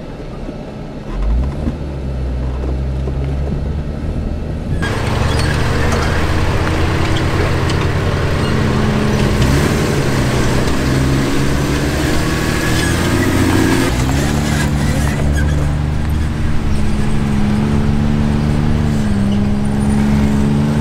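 Off-road vehicle's engine pulling up a trail, its note rising slowly and then dropping twice as it shifts gears. A steady rushing noise of tyres and wind joins suddenly about five seconds in.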